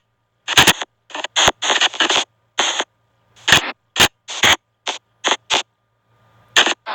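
Spirit box app on an Android phone playing through its speaker: a quick, irregular run of short, chopped bursts of static and radio-like snippets, a few each second, with dead silence between them.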